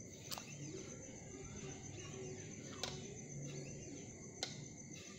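Faint background room noise with a steady high whine, broken by three soft clicks about a third of a second, just under three seconds, and about four and a half seconds in.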